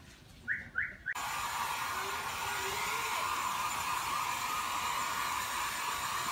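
Handheld hair dryer switched on about a second in, after two brief sounds, then running steadily as it blows over a wet kitten's fur.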